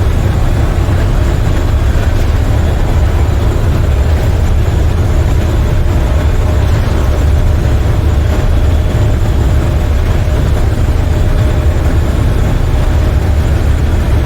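Inside the cab of a semi truck cruising on the highway: the MaxxForce 13 diesel engine and road noise make a steady low rumble that holds even throughout.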